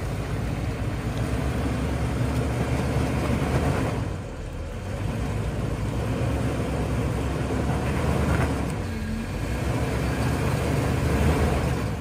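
Jeep Wrangler LJ engine working under load as the rig crawls up a rock ledge. It runs steadily and eases off briefly about four seconds in and again around nine seconds.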